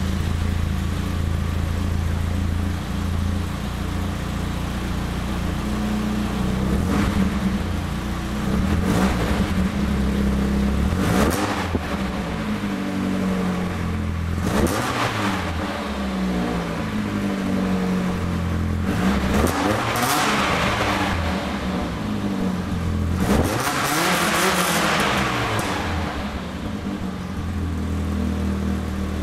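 The 1989 BMW M3 E30's 2.3-litre four-cylinder engine running, its revs rising and falling again about five times.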